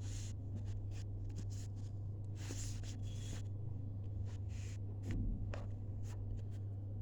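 Faint scratching and light ticks of a pen writing on paper, over a steady low electrical hum.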